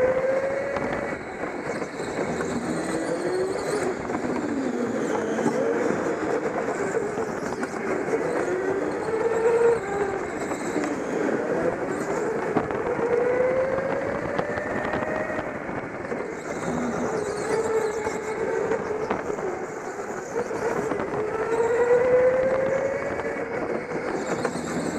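Go-kart running flat out round a tight track, its pitch climbing as it accelerates and dropping as it slows for the corners, over and over, with other karts running nearby.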